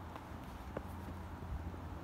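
Three soft footsteps on a damp dirt trail, evenly paced at walking speed, over a faint low rumble.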